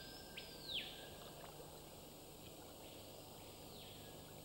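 Faint wildlife ambience over still water: two faint high calls, each sweeping up, holding briefly and falling away, about three seconds apart, over a low even hiss.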